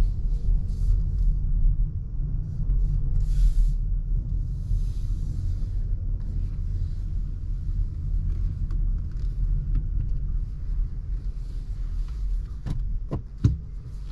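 Steady low rumble of tyres and road inside the cabin of a 2023 Volvo XC40 Recharge, an electric SUV driving slowly, so there is no engine note. Three sharp clicks come in quick succession near the end.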